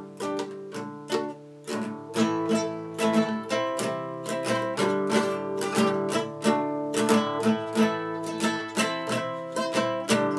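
Background music: plucked strings, likely guitar, playing a steady run of notes.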